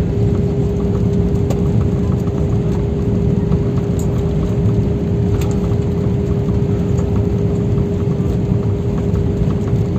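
Jet airliner cabin noise during the landing: a steady low rumble of engines and airflow with a constant hum, and a few faint ticks.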